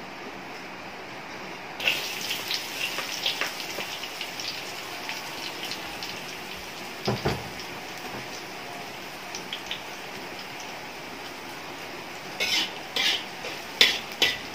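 Chopped onion, garlic and chili hitting hot oil in a wok: after a steady hiss, the oil bursts into sizzling and crackling about two seconds in, with many small spitting pops that slowly settle. A dull knock comes about seven seconds in, and near the end a spatula clatters and scrapes against the wok as the mixture is stirred.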